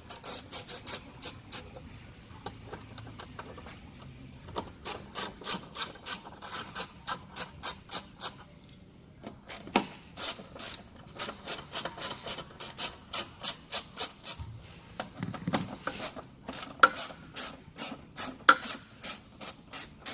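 Socket ratchet clicking as it undoes 8 mm screws, in long runs of evenly spaced clicks, about four a second, with two short pauses.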